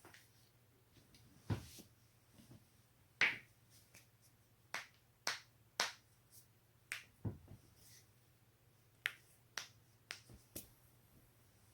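Spinal joints cracking: a string of sharp, short pops at irregular spacing, some coming two or three in quick succession, the loudest about three seconds in.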